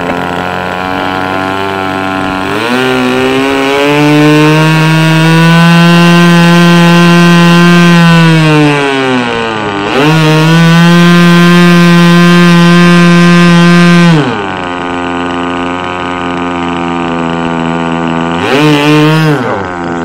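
Nitro glow engine of a Seagull Boomerang V2 RC trainer plane, run up on the ground with the plane held back. It idles, is opened up twice to full throttle and held there for about four seconds each time, drops back to idle between, and gives one short throttle blip near the end.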